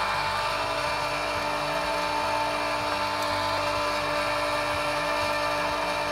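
Electric meat grinder running steadily under load as it grinds chunks of venison through its coarsest plate, a constant motor hum.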